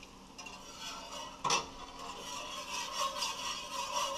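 Wire whisk stirring warm stock into a roux in a cast iron skillet. There is a single knock about a second and a half in, then quick, even scraping strokes of the whisk against the pan from about two seconds on.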